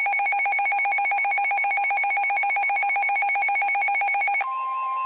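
NOAA Weather Radio alert signals. First comes a loud, rapid pulsing electronic trill. About four and a half seconds in it cuts off and gives way to the steady 1050 Hz warning alarm tone, which signals that a warning message is about to be read.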